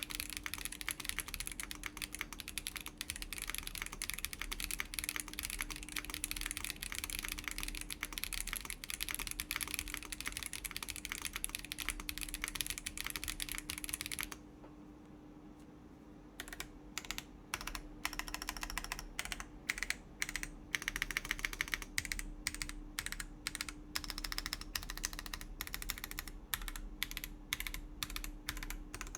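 Typing on a Chilkey ND104 mechanical keyboard with factory-lubed WS Breeze linear switches, an FR4 plate and PBT doubleshot keycaps. A fast, dense run of keystrokes stops about halfway through for a couple of seconds, then typing resumes with slower, separate keystrokes.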